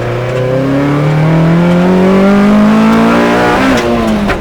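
Toyota AE86's engine accelerating hard at full throttle, its pitch climbing steadily towards the top of the rev range, then dipping near the end.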